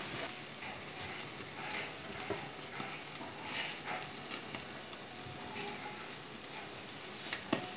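Marinated whole chicken sizzling over an open flame on a wire grilling rack, a steady hiss with scattered faint crackles and a couple of sharp clicks near the end.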